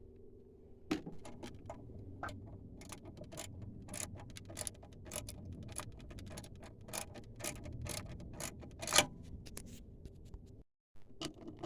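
Irregular light clicks and ticks of hand tools and metal hardware as brackets are fitted and bolted to the underside of an aftermarket air intake, with one sharper click about nine seconds in.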